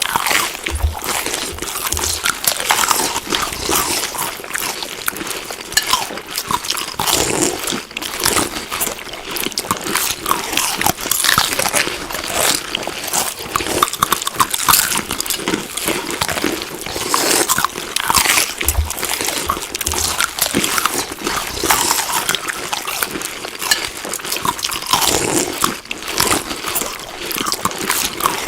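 Close-up chewing of food: a continuous run of irregular crunching and crackling bites.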